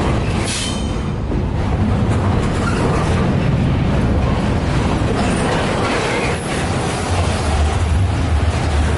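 Double-stack container train's well cars rolling past close by: a steady, loud rumble of steel wheels on rail, with a brief high wheel squeal about half a second in.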